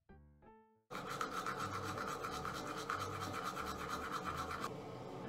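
A few short musical notes die away. From about a second in, a toothbrush scrubs hard against teeth in rapid back-and-forth strokes, easing slightly near the end.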